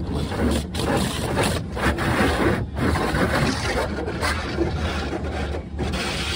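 Water spray hitting the car's windshield and body, heard from inside the car during the car-wash pre-wash, over a steady low hum.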